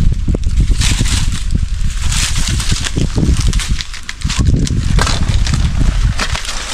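Banana leaves rustling and crackling in irregular bursts as they are pulled and torn from the plants, over a constant low rumble of wind on the microphone.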